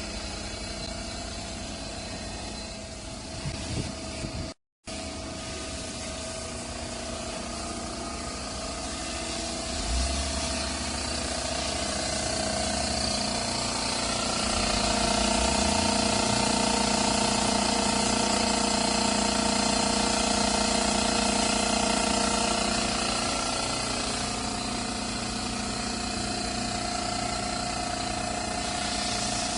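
Oil-free DC piston air compressor running steadily, with a hum and a hiss. It cuts out briefly about four and a half seconds in, and runs louder from about halfway through.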